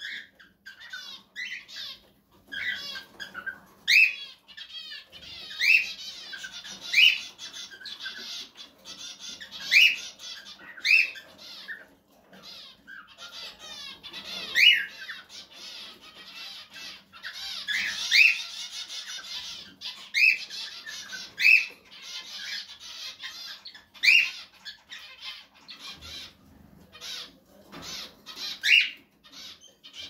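Cockatiels calling while mating: loud, short, rising chirps about once a second, with stretches of rapid chattering between them. The calling thins out near the end.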